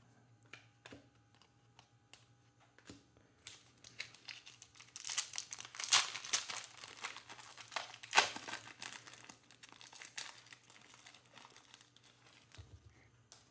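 A foil Panini Mosaic basketball card pack being torn open and crinkled by hand. The crinkling starts after a few faint taps and is loudest about six and eight seconds in.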